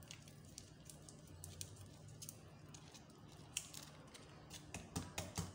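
Faint, scattered crinkling and ticking of a seasoning packet being handled and seasoning sprinkled over raw meat in a steel pot, with a few sharper clicks near the end.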